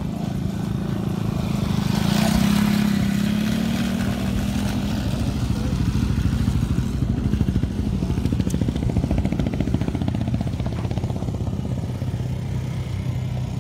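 Small off-road engines, youth ATVs and a dirt bike, running on a dirt track with a steady hum. The sound swells about two seconds in as one passes close.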